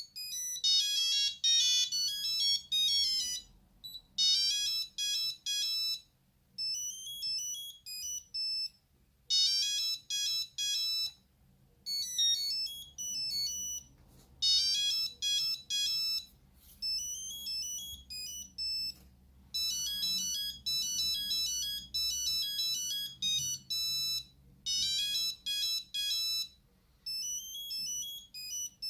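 Nokia 8210 mobile phone playing its monophonic ringtones: quick beeping melodies of high, pure notes in short phrases separated by brief pauses.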